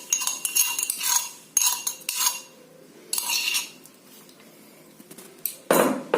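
Metal utensils clinking and scraping in quick strokes with a ringing tone: crushed spices being scraped out and tipped into a saucepan of water. A single louder clatter comes near the end.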